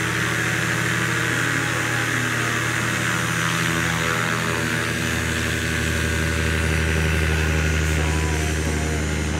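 Paramotor trike's engine and propeller running steadily at power as the trike rolls across a grass field.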